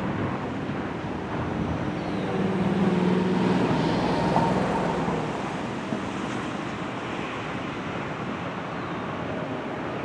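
Steady rumble of highway traffic with wind noise on the microphone.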